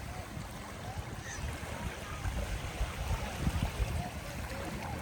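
Sea waves washing on the shore, a steady rush of water, with wind rumbling on the microphone.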